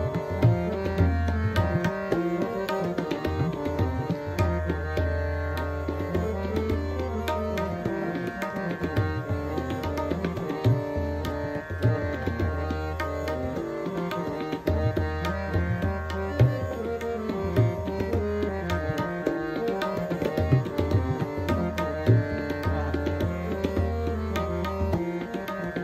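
Hindustani classical music: tabla playing jhaptaal, with sharp right-hand strokes and deep, resonant bayan strokes, under held melodic notes from a harmonium, in a tarana in Raag Yaman.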